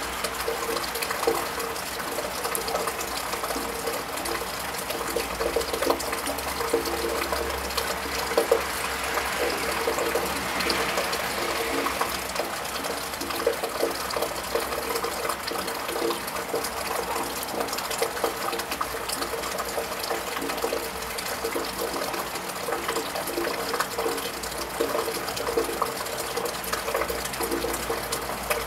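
Steady rain falling on a tiled roof, with many small drips and splashes. A low rumble of passing traffic on the wet road sits underneath for the first dozen seconds or so.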